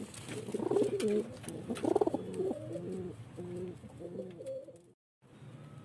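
Domestic pigeons cooing, a run of repeated low coos, until the sound cuts off suddenly near the end.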